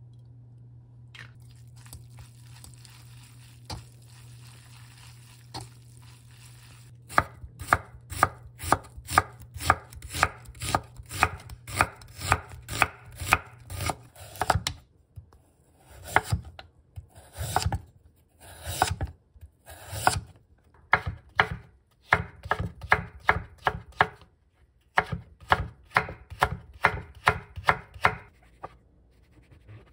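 Chef's knife slicing onion and then cutting carrot into strips on a wooden cutting board: a steady run of sharp knife strokes against the board, about two to three a second, starting several seconds in, with short pauses between batches.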